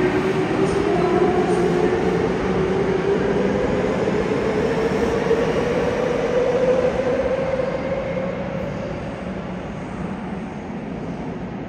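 Subway train pulling out of the station: its traction motors give a whine that rises steadily in pitch as it accelerates over a rumble of wheels. The sound fades away over the last few seconds.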